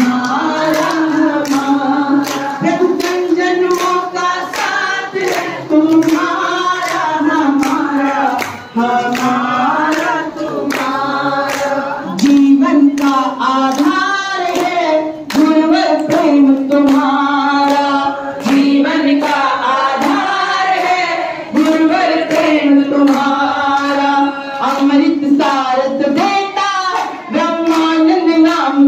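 Women singing a Hindi devotional bhajan, with hand-clapping keeping a steady beat throughout.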